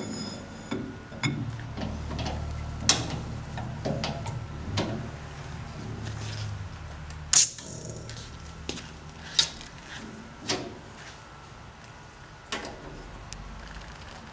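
Rems Unimat 75 thread-cutting machine being worked: a low motor hum for the first half that stops about seven seconds in, with scattered metallic clicks and knocks, the sharpest as the hum ends.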